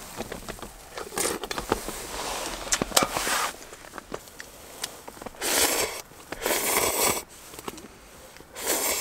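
Ramen noodles slurped with chopsticks straight from the plastic ramen packet: three short slurps in the second half, each about half a second. Before them come plastic crinkling and light clicks as the packet and spoon are handled.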